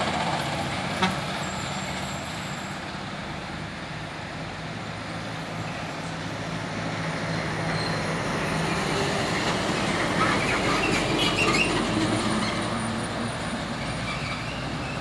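Heavy loaded diesel trucks climbing a hill, their engines running with a steady low drone. The drone grows louder about two-thirds of the way through as a truck passes close, then eases off. A brief click sounds about a second in.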